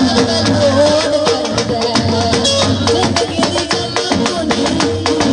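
Live music through a PA: a boy singing a wavering melody into a microphone over a steady beat of dhol and hand drums, with a keyboard.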